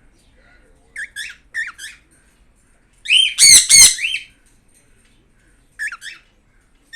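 Caged pet birds squawking: a few short calls, then a loud pair of harsh squawks about three seconds in, then two more short calls near the end.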